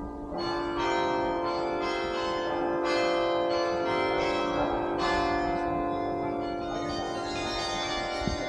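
Bok Tower's 60-bell carillon playing: bells struck one after another about once a second, their tones overlapping and ringing on.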